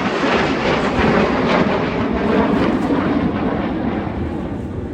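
BAE Hawk T1 jets passing: a loud, even jet roar that fades over the last second or so as its high end drops away.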